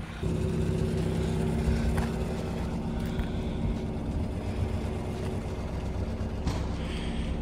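Mazda 1800's engine idling steadily with an even hum; the pitch changes shortly before the end.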